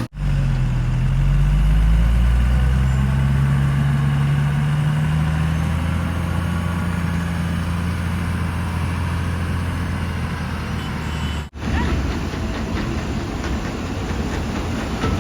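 Heavy diesel engine running steady, its pitch rising a little in the first couple of seconds. About eleven seconds in the sound cuts abruptly to a rougher, noisier engine sound.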